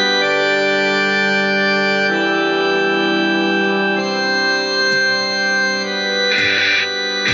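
Music: sustained organ-like keyboard chords that change about every two seconds, with a cymbal-like crash a little after six seconds in.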